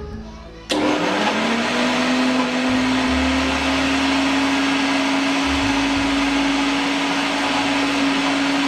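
Electric mixer grinder switching on sharply under a second in and grinding chopped ginger, garlic and salt into paste, its motor hum rising to speed within about a second and then holding steady. It cuts off at the end.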